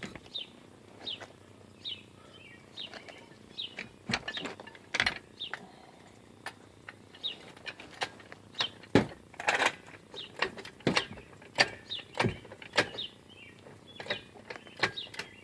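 Irregular sharp metal knocks and clicks of jacks being worked to raise a trailer axle into place, with small birds chirping in the background.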